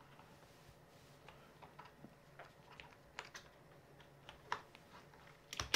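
G-Lab Keyz Iridium keyboard being typed on slowly and unevenly: faint single keystroke clicks, a few a second with gaps between them, and a louder pair of clicks near the end.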